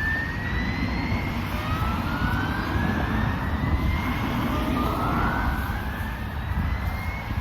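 Industrial site warning sirens sounding a whoop tone during a routine siren test: several sirens each sweep upward in pitch, the sweep repeating about every two and a half seconds and overlapping, over a steady low rumble.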